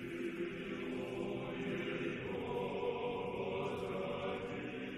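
Background music of voices holding long, steady notes together, choir-like.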